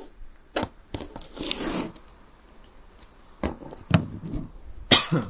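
Handling noise: several sharp knocks and clicks, a brief rustle about a second in, and the loudest knock near the end.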